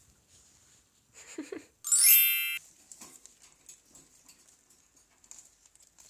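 A parrot gives one loud, flat-pitched screech lasting under a second, about two seconds in, which cuts off sharply. A shorter, lower call comes just before it.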